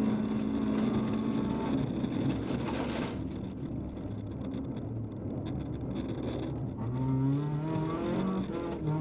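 Volkswagen Polo 1.4 16v rally car's four-cylinder engine heard from inside the cabin. It is held at high revs, then eases off a couple of seconds in and runs quieter, before revving up again with a rising pitch near the end.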